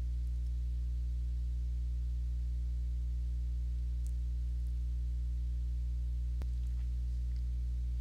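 Steady low electrical mains hum with a buzz of evenly spaced overtones, and a single faint click about six and a half seconds in.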